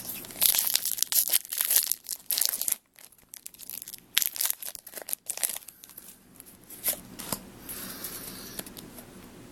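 Foil wrapper of a Pokémon booster pack crinkling and rustling as it is pulled open, in irregular bursts through the first five seconds or so, then softer.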